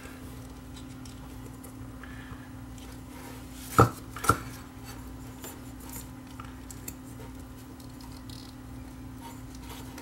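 A small pick clicking and scraping against the plastic housing of a ceiling fan's ball chain speed switch as it is pried apart. Two sharp clicks about half a second apart come near the middle, with faint ticks around them and a steady low hum underneath.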